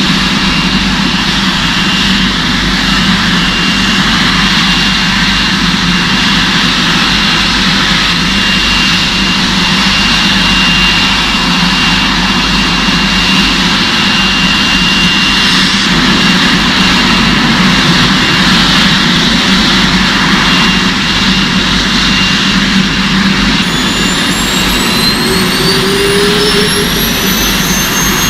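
Jet engine running steadily: a loud, even rush of noise with a thin high whine. From about 23 seconds in, several higher whines rise together as the engine spools up.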